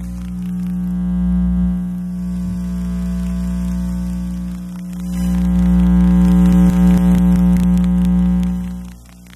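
Electrical interference from electronic devices picked up by an RFI probe: a steady mains-like buzz with many overtones. It swells louder about halfway through with crackling ticks, then drops away sharply near the end.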